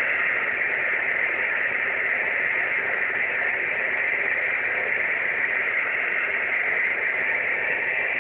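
Steady hiss of receiver noise from an amateur radio transceiver's speaker tuned to 50.130 MHz on the 6-metre band, with no readable voice in it.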